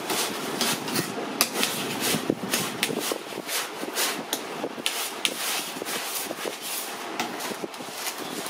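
A spatula scraping and tapping on a work table as coloured cream icing is mixed and spread, giving many irregular sharp clicks and scrapes.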